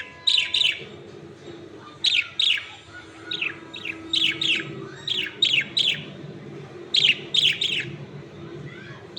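Birds chirping: short, sharply falling chirps in quick clusters of two or three, repeated every second or so.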